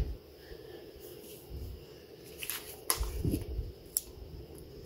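Paper sticker sheet and planner pages being handled: soft rustling and light thuds, with a couple of sharp little clicks past the middle.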